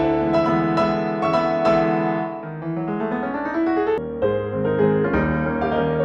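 Background piano music: a keyboard melody of struck notes over sustained chords, easing off briefly about two and a half seconds in before picking up again.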